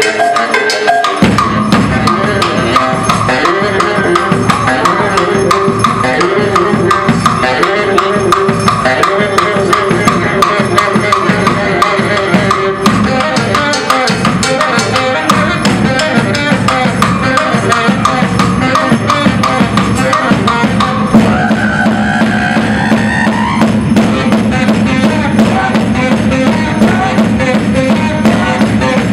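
Baritone saxophone and a strapped-on drum rig with mounted blocks and a small cymbal playing an upbeat tune together. Fast, steady drum strokes sit under held sax notes, and the sax line changes to a new phrase about two-thirds of the way through.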